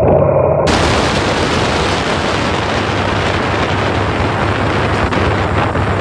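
Heavy wind rush on the microphone of a moving Harley-Davidson Breakout motorcycle, cutting in loud about a second in, with the V-twin engine running steadily low underneath.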